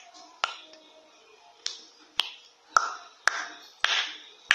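Slime squeezed and pressed by hand, giving sharp popping clicks about seven times at irregular half-second intervals, a few trailed by a short squishing hiss.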